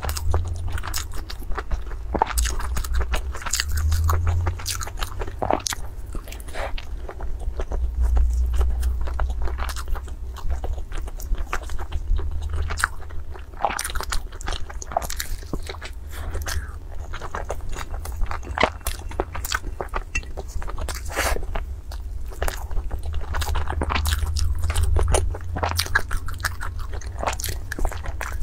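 A person biting and chewing crispy fried food close to a clip-on microphone: a dense run of crunches and crackles, over a deep low rumble.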